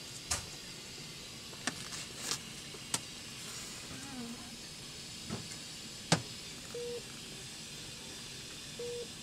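Quiet intensive-care room sound: a steady hiss with scattered clicks and handling rustles, and two short single-pitch beeps from a patient monitor, about seven and nine seconds in.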